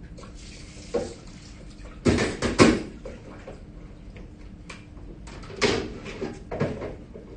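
Washing up by hand at a sink: water running, with dishes and utensils clattering now and then. The loudest knocks come about two seconds in, and again near six seconds. A steady low hum sits underneath.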